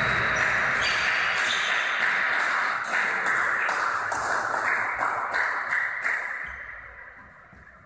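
Table tennis balls clicking and bouncing, several irregular clicks a second, ringing in a large hall; they die away about six and a half seconds in.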